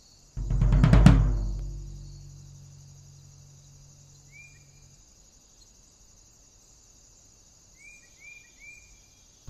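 One heavy, booming percussion hit from the film's score: a rattling build-up about half a second in peaks into a loud boom, which fades over a couple of seconds, with a low hum lingering to about five seconds. Under it runs a steady high insect buzz, and a few short falling chirps come once midway and three times in quick succession near the end.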